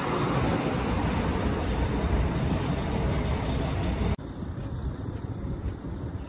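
Wind buffeting the phone's microphone as a rough, low rumble. It drops suddenly about four seconds in, leaving quieter wind noise.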